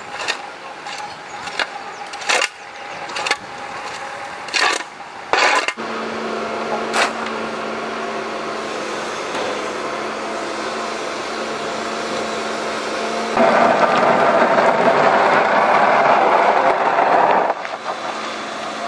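A metal shovel scraping across the road and scooping spilled flower bulbs, in separate strokes. Then a diesel excavator runs steadily, and for about four seconds near the end its bucket scrapes and rustles through the pile of bulbs.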